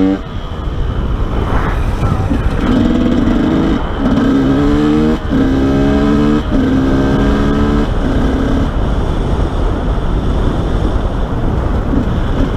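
Dirt-bike-style motorcycle engine pulling in a run of about five short bursts, each about a second long with brief breaks between them, then dropping back under a steady rush of wind and road noise on the helmet microphone.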